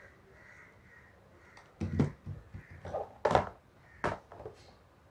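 Handling sounds from a plastic rechargeable LED torch and its cardboard box being moved about on a table: after a quiet start, about five short knocks and clicks, the loudest a little after three seconds in.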